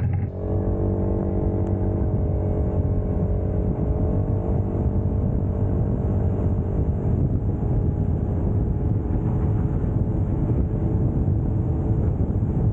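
Motorcycle engine running at a steady cruising speed while riding, with rushing wind noise underneath.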